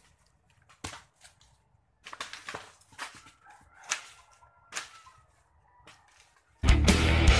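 Scattered sharp snaps and rustles of twigs and leaves in a santol tree as a person climbs through its branches. Loud music starts abruptly near the end.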